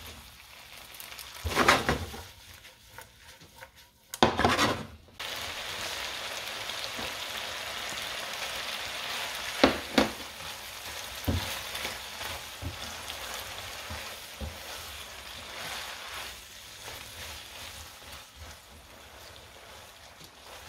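Spaghetti, shrimp and cherry tomatoes sizzling in a hot nonstick frying pan while being stirred with a silicone spatula. There are two loud bursts in the first five seconds, then a steady sizzle with a couple of sharp knocks of the spatula on the pan about ten seconds in, when butter is added, and the sizzle slowly fades.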